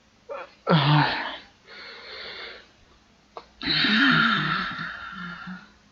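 A man laughing in breathy, wheezing bursts: one short burst, then a longer one about three and a half seconds in.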